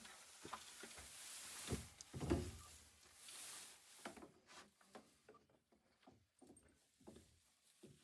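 Rustling with two dull thumps about two seconds in while a cow is being fed in its stall, followed by scattered light knocks and clicks.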